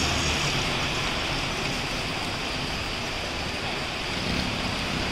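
Rain coming down hard, a steady even hiss.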